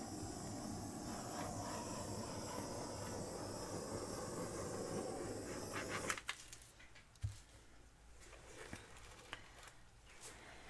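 Handheld butane torch hissing steadily as it is passed over wet acrylic paint to bring up cells. It shuts off suddenly about six seconds in, leaving a few faint clicks and handling sounds.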